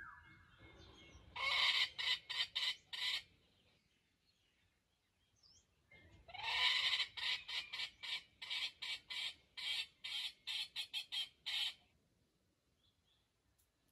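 Wild junglefowl giving harsh, rapidly pulsed calls in two bouts, a short one and then a longer one whose notes come faster near the end.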